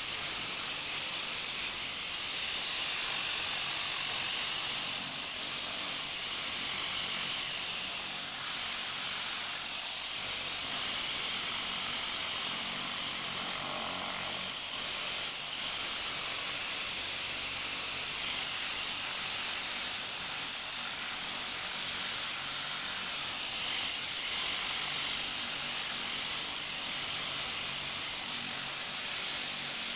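High-pressure water jet from a pressure-washer lance blasting rust and dirt off a large metal pipe: a steady, loud hiss of spray, with a faint low hum underneath.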